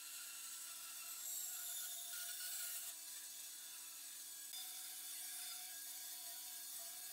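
Bandsaw running, its blade cutting through a wooden board with a steady hiss over the motor's hum. The cutting grows louder for a couple of seconds about a second in.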